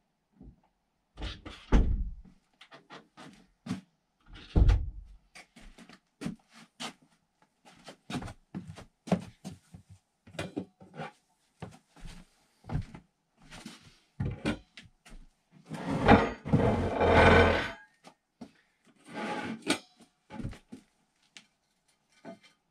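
Handling noises: a string of knocks, thumps and rubbing sounds from someone moving about on a wooden floor and handling things, with a denser stretch of rustling and scraping about sixteen seconds in.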